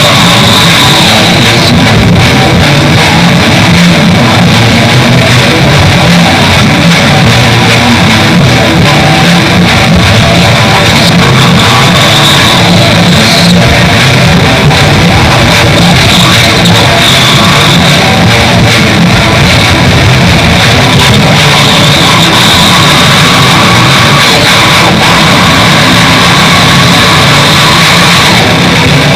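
Raw black metal instrumental passage: distorted electric guitars and bass over drums, a dense, loud and unbroken wall of sound.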